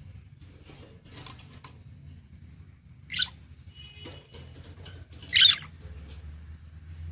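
Budgerigars calling: two loud, short squawks about two seconds apart, with soft chattering and a brief warble between them.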